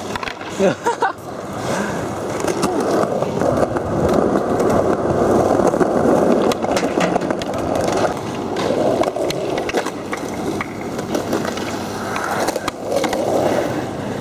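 Skateboard rolling along the ground, its wheels making a steady rumble that grows about two seconds in and swells again near the end, with scattered clicks and a couple of sharp knocks about a second in.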